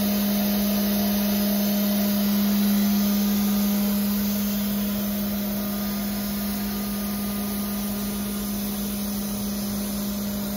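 12 hp HSD ES929 electro spindle on a CNC router, spinning with no load at 12,000 RPM: a steady, quiet hum on one constant pitch, getting a little fainter after about four seconds.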